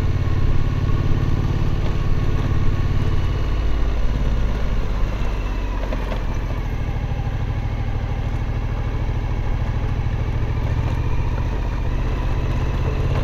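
Suzuki V-Strom 1050 V-twin engine running steadily as the motorcycle is ridden, its note dropping slightly about four seconds in.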